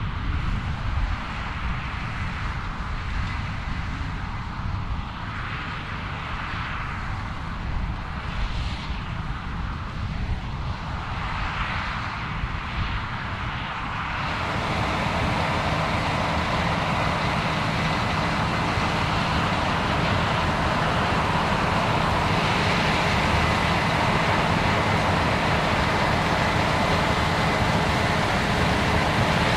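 Combine harvester running at work, a low mechanical rumble with wavering gusts of noise over it. About halfway it changes abruptly to a louder, steadier machine noise with a thin high whine.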